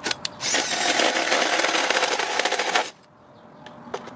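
Cordless drill spinning the O.S. nitro engine of an RC monster truck through a starter extension: two short bursts, then about two and a half seconds of steady cranking that stops suddenly.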